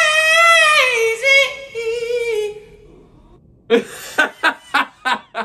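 A man belts one long, very high sung note that holds, then dips lower and fades out about two and a half seconds in. After a short pause a man laughs in quick bursts, about three a second.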